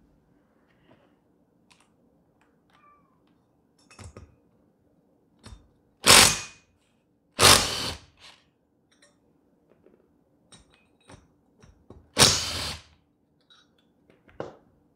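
Cordless impact driver running in three short bursts of about half a second each, backing out the bolts of the push rod guide plate on a Honda GX160 cylinder head. Small clicks and knocks of tool handling come between them.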